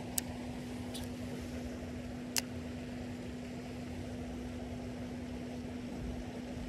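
Steady low mechanical hum holding one constant low tone, with a few sharp clicks in the first seconds from handling the spinning rod and reel.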